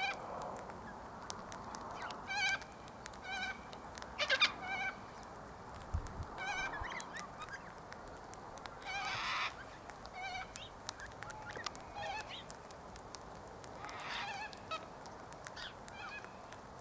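Galahs calling while feeding: short nasal calls repeated every second or so, with a longer harsh screech about nine seconds in.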